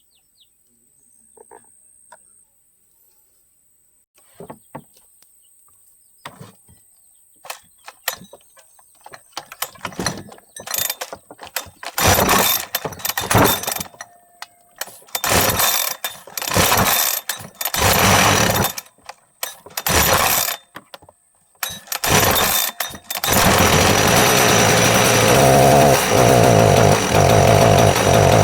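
Husqvarna 372XP two-stroke chainsaw being started: faint handling clicks, then a string of loud short bursts as it is pulled and briefly fires, until about 23 seconds in it catches and keeps running steadily.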